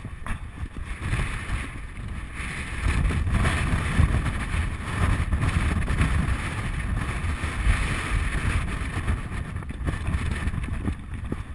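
Wind buffeting the microphone of a camera carried by the rider of a fast-moving horse: a steady rushing rumble that grows louder about three seconds in as the pace picks up.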